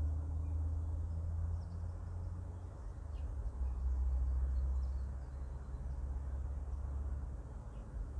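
Wind buffeting the microphone as a low, fluctuating rumble, with faint bird chirps now and then; no bells are ringing.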